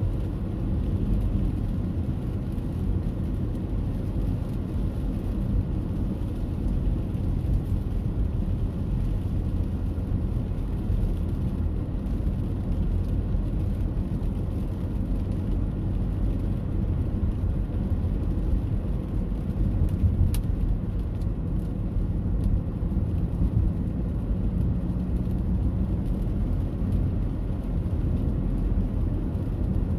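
Steady low rumbling noise, with one sharp click about twenty seconds in.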